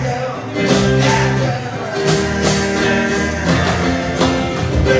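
Band music with strummed guitar and sustained chords.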